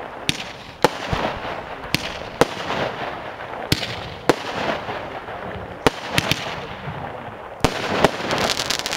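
The "Orient Express" firework cake firing shot after shot: a string of sharp bangs as shells launch and burst, over continuous crackling from the rising glitter trails. The crackle thickens into a dense flurry near the end.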